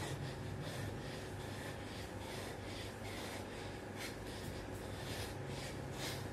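A man breathing hard through push-ups, with short, sharp puffs of breath about twice a second. A steady low hum runs underneath.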